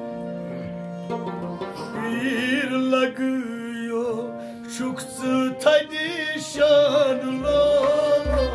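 Live Kashmiri folk music: a harmonium holds steady notes under a male voice singing a wavering, ornamented melody, with string accompaniment. Low drum strokes come in near the end.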